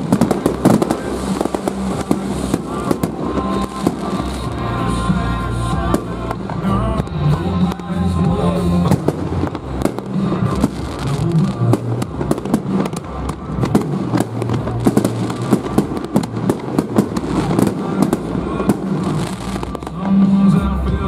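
Aerial firework shells bursting one after another in a continuous barrage of bangs and crackles, with music playing underneath.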